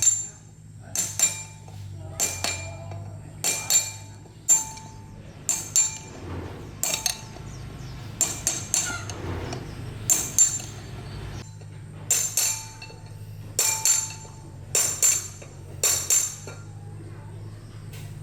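Metal being struck with a hammer: sharp clinking blows about once a second, often two in quick succession, each with a brief metallic ring, over a steady low hum.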